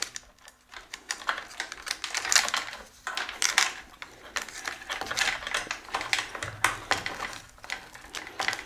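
Bicycle chain rattling and clinking against the teeth of a Rotor Q-Ring chainring as the chain is fitted onto it by hand: a steady run of small, irregular metallic clicks.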